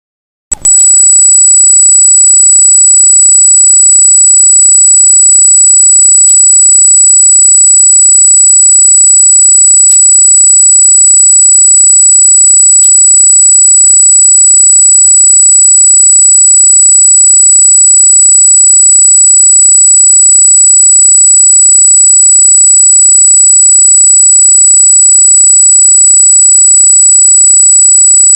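A loud, steady high-pitched squeal, one unbroken electronic tone with overtones, that starts abruptly about half a second in. It is an unexplained noise on the recording's audio track and not from the animals.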